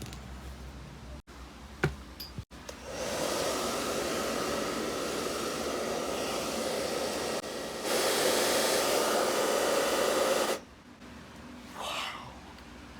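Hair dryer blowing hot air to melt crayon wax. It starts about three seconds in, gets louder at about eight seconds, and cuts off suddenly near eleven seconds.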